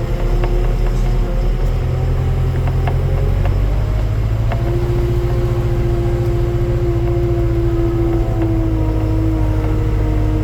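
Heavy machine running steadily, a deep hum with a whining tone over it that grows louder about four and a half seconds in, with a few faint ticks.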